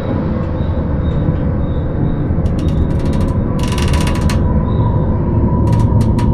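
Steel bridge structure picked up through a contact microphone, vibrating under passing traffic: a steady low rumble with clusters of sharp metallic clicks and a short rattling burst about halfway through, and more clicks near the end.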